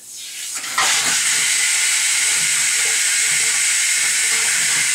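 32K electronic-demand water softener going into backwash: water rushes through the control valve with a steady hiss that swells over the first second and jumps to full strength just under a second in. The flow is reversed up through the resin tank to lift and flush the resin.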